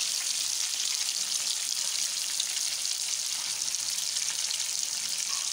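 Minced-meat kebab patties frying in shallow oil in a pan, a steady sizzle with a fine crackle throughout.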